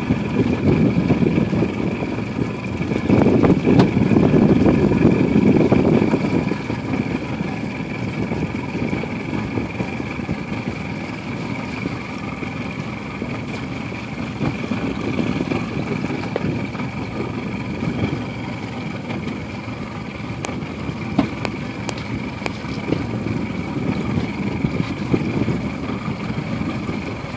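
Motorboat engine running steadily with a thin whine, under wind buffeting the microphone, gustier in the first six seconds.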